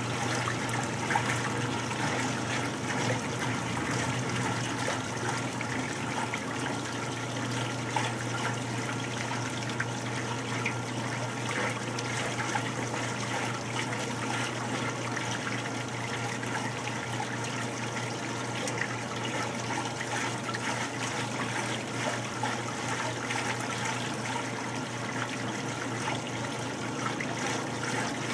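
Top-loading washing machine filling: a steady stream of water pouring and splashing into the tub from the fill inlet, with a low steady hum underneath.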